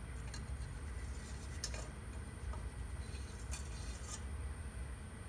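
Soldering torch flame running with a steady low rumble, with about four faint sharp clicks over it.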